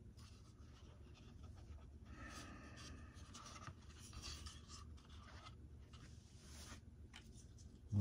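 Faint rubbing and light tapping of hard plastic model-aircraft parts being handled and set down.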